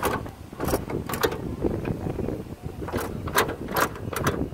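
A string of short knocks and rustles over a low rumble, typical of a phone being handled and bumped while it is moved around under a car.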